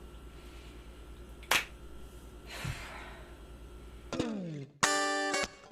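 Quiet room with a steady low hum, a single sharp click about a second and a half in and a soft thud a little later. Near the end music cuts in: a downward sliding tone followed by plucked guitar chords.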